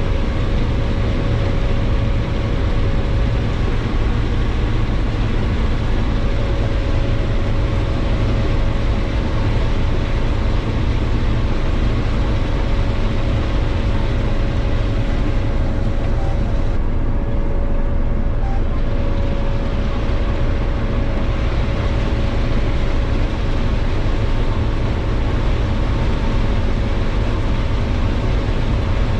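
Combine harvester running steadily while harvesting corn: an even, heavy low hum with a faint steady whine above it.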